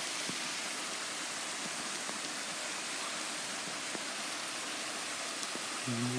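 Small woodland brook running over stones: a steady rush of water.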